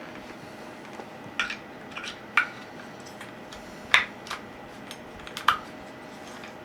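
Short, sharp plastic clicks and knocks, about six spread out, the loudest about four seconds in, as a AA battery is fitted into the battery compartment of a Takstar SGC-598 shotgun microphone.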